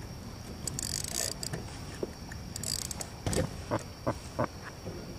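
Fishing rod and reel being handled: mechanical clicks and knocks, a quick run of them about three to four and a half seconds in, with two short hissing bursts earlier.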